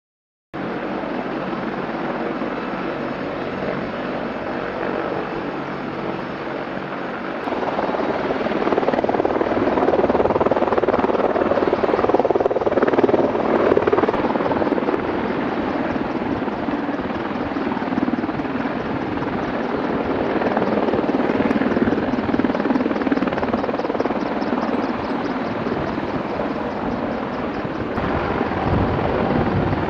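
Helicopter running with a dense, steady rotor and engine noise with a rapid fine pulsing. It starts abruptly about half a second in and grows louder from about seven seconds on.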